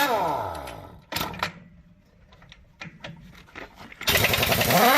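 Impact wrench hammering on trailer wheel lug nuts: a rattling burst that stops about a second in, its motor whine falling as it winds down, a few light clicks, then another burst starting about four seconds in.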